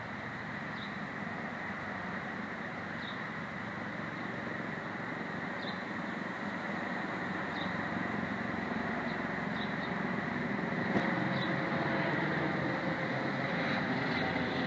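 Steady outdoor background rumble, slowly growing louder, with faint short high chirps every second or two and a single click about eleven seconds in.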